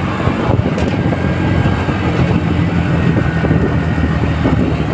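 Two-wheeler's engine running steadily while riding along, with wind rushing over the microphone.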